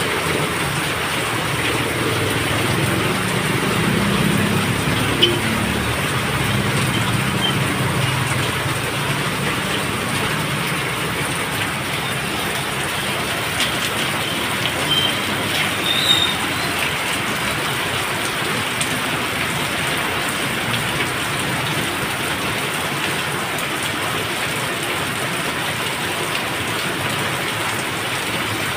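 Heavy rain falling steadily, with water streaming off a roof edge. For roughly the first ten seconds, a passing vehicle's engine is heard low under the rain.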